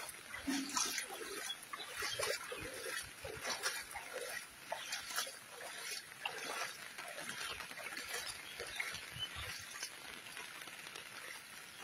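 Footsteps splashing through shallow floodwater on a paved path, irregular short slaps one or two a second, over a steady hiss.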